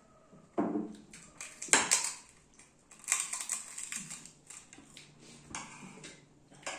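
Spoon and cutlery clinking and scraping against plates, in scattered short clicks and scrapes.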